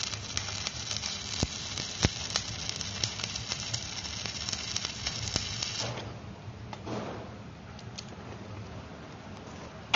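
Electric stick arc welding: a steady crackle and sizzle with frequent sharp pops, which stops abruptly about six seconds in, leaving a fainter hiss.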